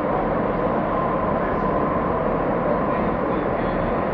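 Madrid Metro Line 3 train running through a tunnel, heard from inside the car: a steady loud rumble and hiss of the wheels on the rails, with a faint steady whine.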